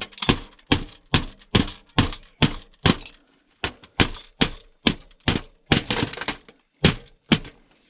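A Yamaha DVD player's plastic and metal casing being struck or broken apart: a fast, even run of sharp cracks, about two or three a second.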